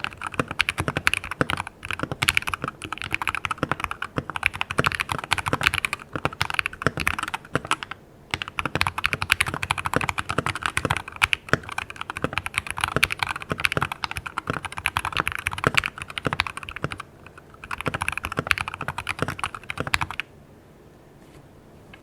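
Typing on a mechanical keyboard with JWK Lavender linear switches in a foamed Keydous NJ68 with a stainless steel plate: a fast, dense run of key clacks. It breaks briefly about eight and seventeen seconds in, and stops about two seconds before the end.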